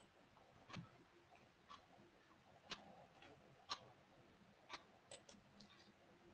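Faint, sharp clicks over quiet room tone, most of them about a second apart, with a few closer together near the end.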